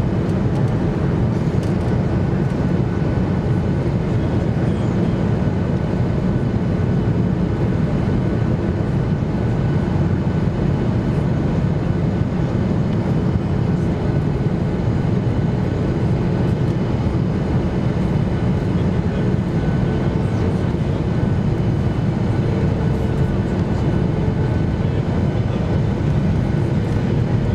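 Steady roar of engine and airflow noise inside the cabin of a Boeing 737-800 airliner on descent, deep and even, with a faint steady hum above it.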